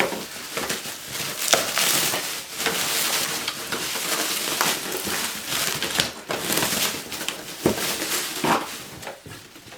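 Rustling and crunching of cardboard and packing material being handled and crumpled, with scattered sharp knocks, easing off near the end.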